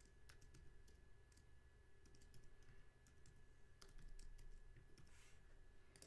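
Faint, irregular clicks of computer keyboard keys being typed.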